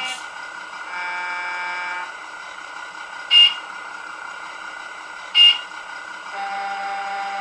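Beier sound module in a Tamiya scale truck playing a steady idling truck-engine sound through its small speaker, with different air horn sounds selected in turn: a horn about a second in, two short, much louder blasts a couple of seconds apart mid-way, and another horn near the end.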